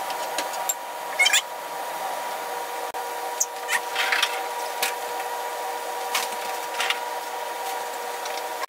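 A small electric kitchen-appliance motor running steadily with a constant whine, broken by short high squeaks several times.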